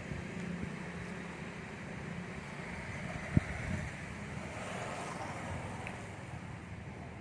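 Street ambience with light traffic: a vehicle passes, swelling and fading over a couple of seconds, with wind on the microphone. A single sharp knock sounds about halfway through.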